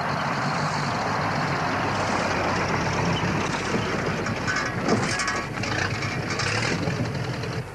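Old truck driving, its engine running with a steady low hum, and a run of clattering from the body from about halfway through to near the end.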